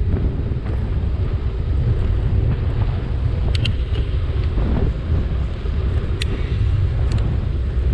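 Wind rushing over a GoPro's microphone on a moving bicycle, a steady low rumble, with road traffic beneath it. A few brief high ticks come through around the middle and near the end.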